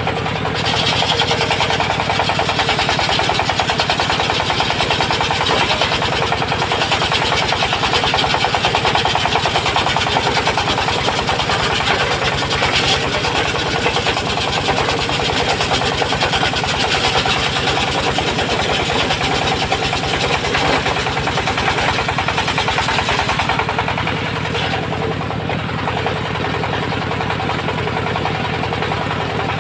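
Circular-blade sawmill running steadily under its engine while ripping a teak beam lengthwise, a continuous machine drone with a hissing cutting noise. The higher hiss thins out about 24 seconds in.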